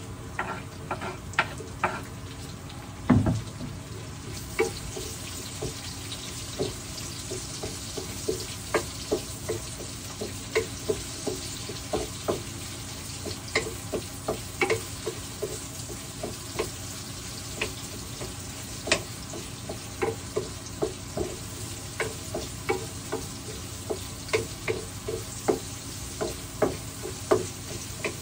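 Chopped onion sizzling in hot oil in a frying pan, the hiss growing stronger about four seconds in, while a wooden spoon stirs and knocks against the pan one to three times a second. One heavy thump comes about three seconds in, as the onion is tipped off a wooden cutting board into the pan.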